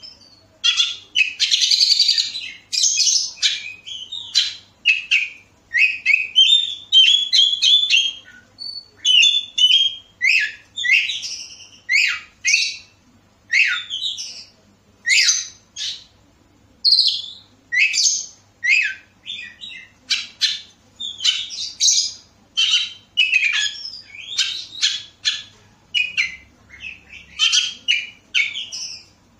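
Oriental magpie-robin (kacer) singing a loud, varied song of short whistled and chirping phrases that sweep up and down in pitch, coming one after another about once a second with brief pauses between.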